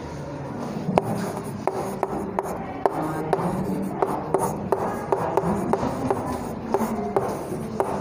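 Chalk writing on a chalkboard: scratchy strokes and sharp taps as letters are written, with music underneath.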